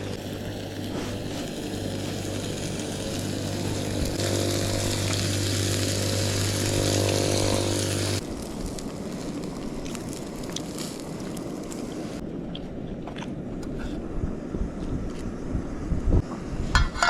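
An engine running steadily, growing a little louder, then shut off abruptly about eight seconds in. Afterwards there is a wind-like hiss, with a few knocks near the end.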